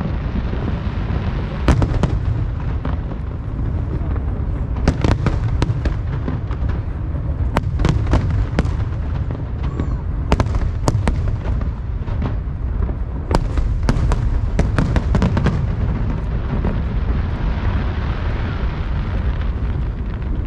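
Aerial fireworks display: a continuous low rumble of launches and bursts, with many sharp bangs and cracks going off throughout.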